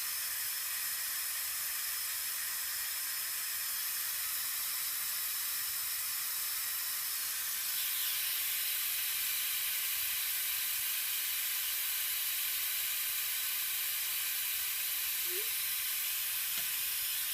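Compressed air hissing steadily out of an air compressor's tank as it is bled down, a little stronger about eight seconds in. The tank pressure is falling toward roughly 30 psi, where the pressure switch restarts the compressor.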